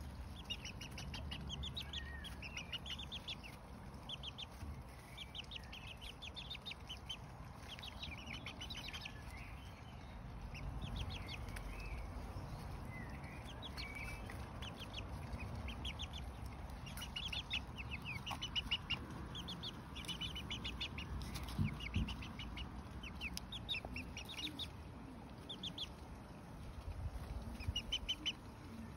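Two-month-old Lemon Millefleur Sablepoot bantam chicks peeping: short runs of rapid, high-pitched cheeps that come and go, several every few seconds.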